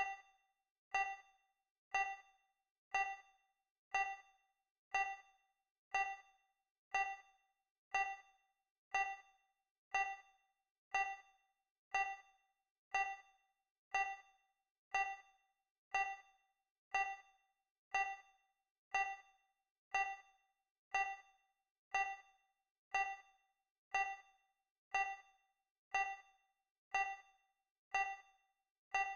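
Countdown timer tick sound effect: a short, bright pitched tick repeating steadily once every second.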